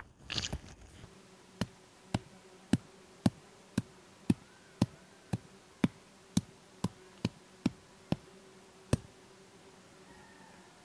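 A hand-held stone knocking down onto a mound of earth, about fifteen sharp taps at roughly two a second that stop about a second before the end. An insect buzzes faintly and steadily underneath.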